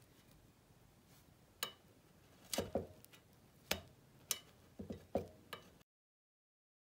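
Thin metal tongs clicking and tapping against a metal financier pan and the cakes as baked financiers are lifted out of their moulds: about eight sharp, irregular clicks, some in quick pairs.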